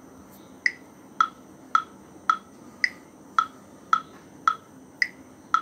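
Metronome clicking steadily at 110 beats per minute, with a higher-pitched accent click on every fourth beat marking the start of each bar.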